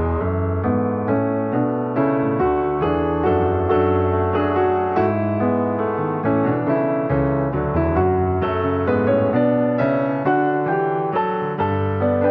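Gentle piano music: a steady series of sustained notes and chords.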